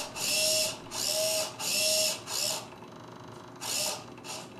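Hitec HS-805BB+ hobby servo whirring in short bursts as it drives the head's nod mechanism up and down. There are about six bursts, with a pause around three seconds in.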